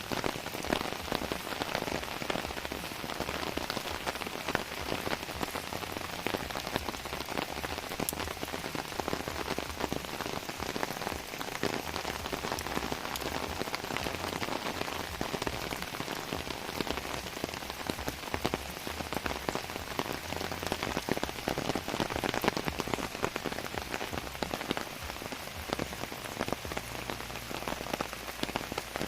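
Heavy rain falling steadily, a dense, unbroken patter of drops striking surfaces.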